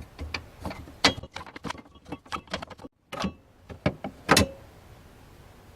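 Knocks, clicks and rattles of hands working in a car's trunk, unscrewing the spare tire's hold-down and moving parts; the sharpest knocks come about one second in and just after four seconds.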